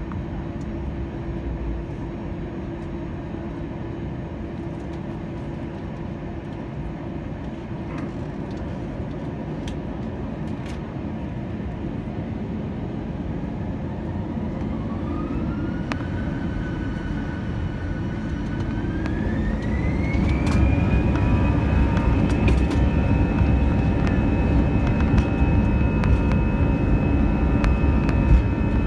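Cabin sound of an Airbus A320-family jet's turbofan engines on the runway. A steady low rumble gives way, about halfway through, to a whine that rises in two steps to a high steady pitch and grows louder as the engines spool up to takeoff power. A few clicks and knocks come near the end.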